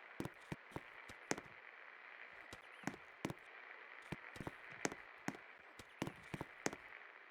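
56-inch Electro Wind industrial ceiling fan running with a steady faint whir, with many sharp clicks at irregular intervals throughout.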